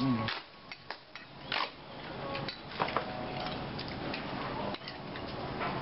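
Chopsticks clicking against ceramic bowls during eating: a handful of light, scattered clicks over a low background.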